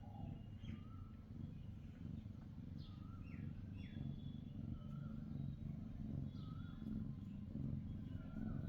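Small birds chirping: short, quick downward-sliding calls and lower wavering notes, repeating about once a second over a steady low rumble like distant traffic.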